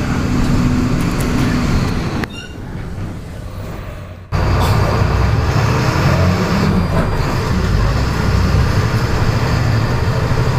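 Diesel engine of a Volkswagen 17.230 EOD bus running loud under load. About two seconds in it falls to a quieter, thinner sound for about two seconds, then comes back loud all at once.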